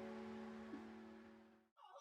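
Background music: a held piano chord slowly dying away, cut off suddenly near the end.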